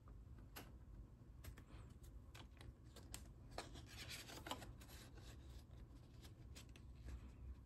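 Faint scattered rustles and light clicks of a laminated savings-challenge card and binder pages being handled.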